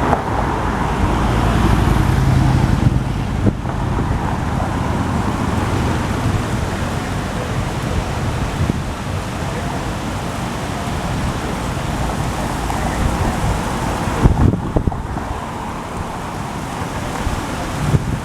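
Strong wind buffeting the microphone over a steady rush of ocean surf, with a few sharp gusty thumps about fourteen seconds in.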